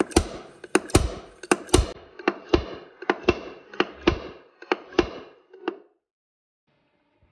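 Repeated sharp metal impacts of a slide hammer threaded into an 8L90 transmission's front pump, knocking it loose from the case, about two blows a second; the blows stop near the end.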